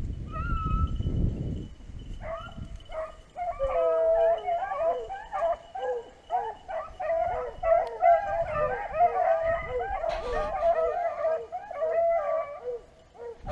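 A pack of beagles baying in full cry, several voices overlapping, typical of hounds running a rabbit. It starts about two seconds in and keeps going, after a low rumble of wind or handling noise on the microphone.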